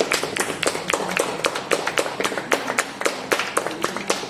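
A small group of people clapping by hand, uneven single claps coming several a second.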